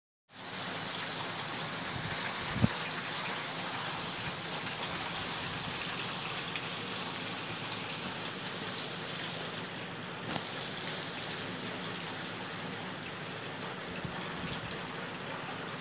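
Heavy rain falling steadily on tiled roofs and wet paving, an even hiss, with a single sharp tap about two and a half seconds in.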